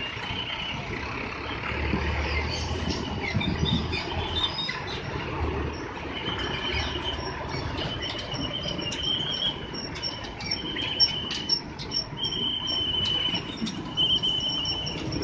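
Road traffic crossing a railway level crossing: trucks, cars and motorcycles running over the rails. Repeated high-pitched chirps of about a second each sound over the traffic.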